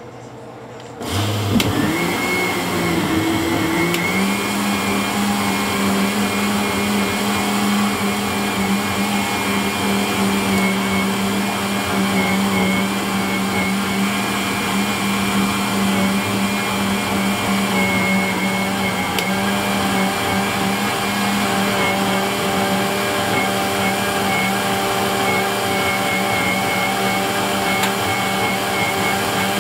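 Countertop blender switched on about a second in, its motor spinning up with a rising whine over a few seconds, then running steadily while blending a jar full of liquid.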